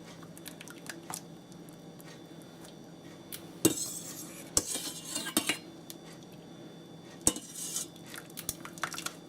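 A metal utensil knocking and scraping against a cooking pan a handful of times as noodles are worked in it, with sharp clinks about four seconds in, twice more around five seconds and once more past seven seconds.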